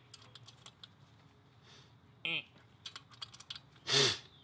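Ratchet wrench clicking in short irregular runs as the go-kart engine's cylinder-head bolts are tightened. A bird gives one short falling call about two seconds in, and a brief louder sound comes near the end.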